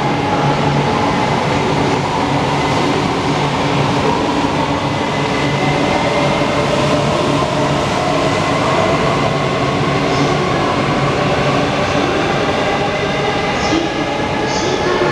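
Shinkansen bullet train at the platform: a steady, loud rumble of train noise with faint whining tones held through it.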